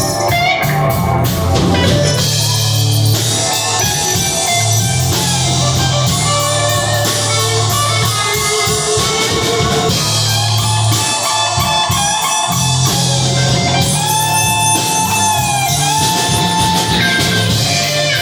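A live band jam: electric guitar and drum kit playing loud, dense, rock-style improvised music with a steady low bass drone and sustained notes.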